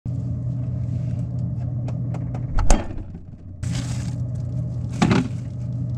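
Refrigerator with a steady low hum, seen from a camera inside it, with clicks and rattles as things inside are handled. A sharp clunk comes about two and a half seconds in and another knock about five seconds in.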